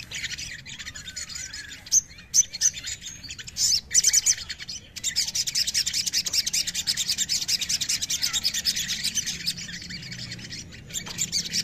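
Male olive-backed sunbird singing: sharp high chirps and short bursts for the first few seconds, then from about five seconds in a long, fast, unbroken trill of rapid high notes.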